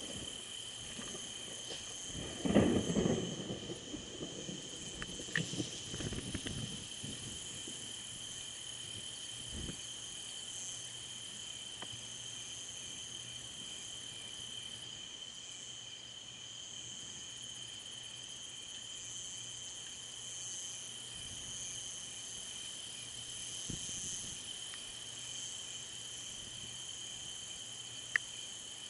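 Crickets chirping in a steady, high, continuous chorus. About two and a half seconds in, thunder comes in as a loud crackling rumble, followed by smaller crackles a few seconds later. A single sharp click near the end.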